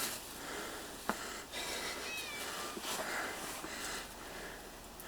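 Domestic cat meowing faintly, a short high meow about two seconds in, with a single sharp click about a second in.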